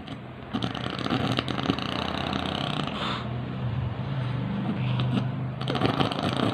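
Snoring with a croaking rasp likened to a rice-field frog: a long rattling breath starting about half a second in, a low drone, then a second rattling breath near the end.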